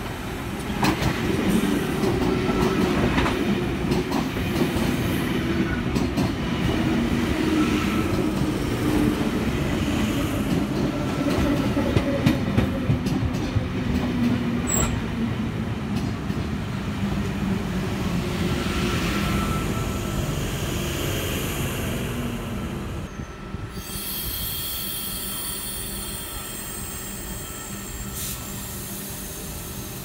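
Intercity double-deck electric passenger train running past close by, a steady rumble with wheels clicking over rail joints and faint thin squeal tones. In the last few seconds it turns quieter, with a high hiss.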